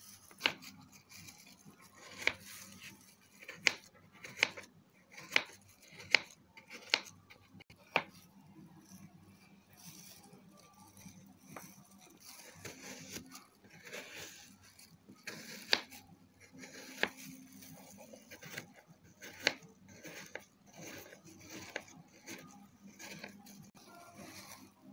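Hand food-preparation sounds: about a dozen sharp, irregular knocks and clicks of a knife and fruit against a plastic cutting board and bowl, most of them in the first eight seconds, with soft rustling and scraping between them.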